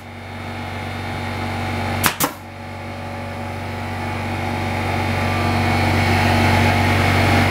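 A pneumatic nail gun fires once about two seconds in, a quick double clack, driving a finishing nail through beadboard. Under it an air compressor hums steadily.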